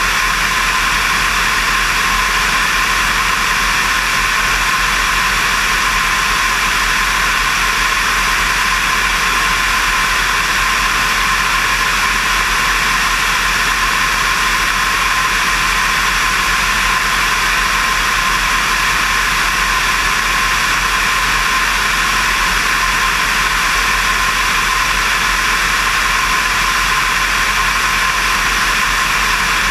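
Steady rush of airflow over a wing-mounted camera, mixed with the drone of a Diamond DV20 Katana's Rotax flat-four engine in cruise flight.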